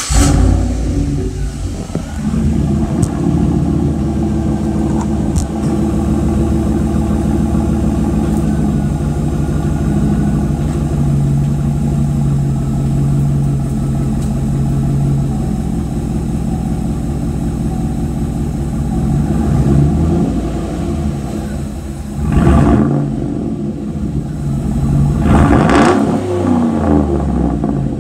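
GMC Sierra 5.3-litre V8 running through an exhaust with 5-inch tips. The engine settles from its start-up into a steady idle, then is revved briefly twice near the end.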